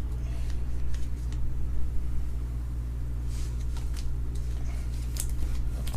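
A steady low hum runs underneath, with a few faint, short clicks and rustles from cards and packs being handled.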